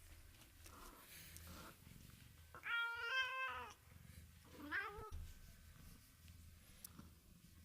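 Domestic cat meowing twice, pitch-corrected with autotune: a longer complaining meow about three seconds in, then a shorter rising one near five seconds.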